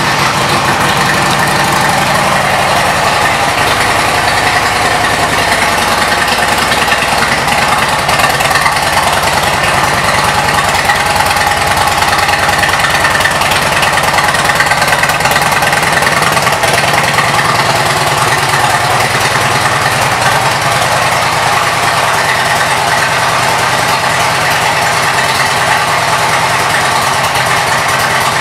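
2007 Harley-Davidson Ultra Classic's Twin Cam 96 V-twin engine idling steadily, with an even low pulsing from the exhaust.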